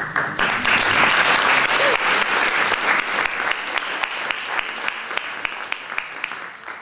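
Audience applauding: the clapping swells about half a second in, then thins toward the end into separate claps before stopping.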